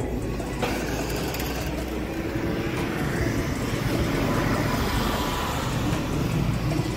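A road vehicle running past with a steady low rumble, growing a little louder midway and then easing off.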